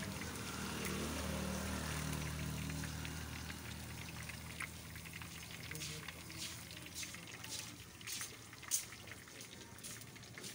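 Fish pieces deep-frying in hot oil in a large iron karahi: a steady sizzle, with sharp crackles and pops growing more distinct in the second half and one louder pop about nine seconds in. A low hum sits underneath for the first few seconds and fades out.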